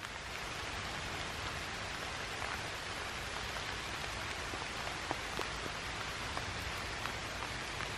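Steady rain falling on leafy undergrowth: an even hiss with scattered sharp ticks of single drops.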